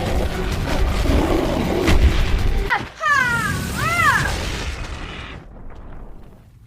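A loud booming blast with a heavy rumble and sharp impacts. Then comes a brief high cry that rises and falls in pitch, before the noise dies away.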